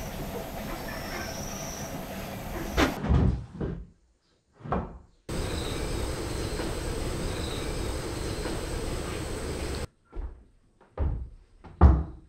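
Curved wooden arc segments being handled and set down on a wooden floor: a handful of dull wooden knocks, the loudest near the end, between stretches of steady background noise.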